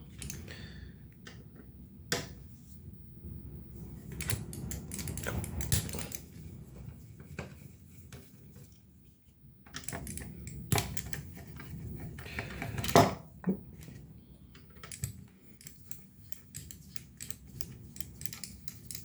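Irregular small clicks, rattles and knocks of hands and tools taking apart an electronic control panel: metal and plastic parts being handled and pulled apart, with a few sharper knocks spread through.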